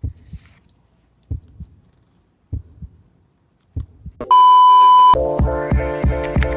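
Heartbeat sound effect: four low double thumps about a second and a quarter apart, then a loud steady electronic beep lasting under a second. Electronic background music with a steady beat starts right after the beep.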